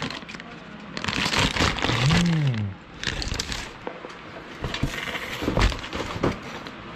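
Plastic courier pouch being torn open and rustled by hand: crinkly crackling in a few bursts, the longest about a second in, with a couple of sharp knocks near the end.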